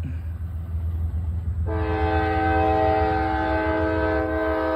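A GE diesel locomotive's multi-note chord horn sounds one long, steady blast, starting about two seconds in, over a low, steady diesel rumble.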